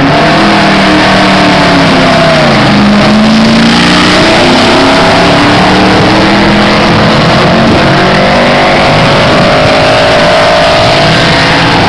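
BRM Type 30 (V16 Mk2) grand prix car's supercharged 1.5-litre V16 engine running loud. Its pitch dips about two and a half seconds in, then climbs steadily through the second half as it revs up.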